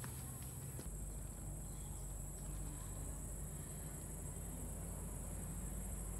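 Insects shrilling steadily in a continuous high-pitched drone, with a low rumble underneath.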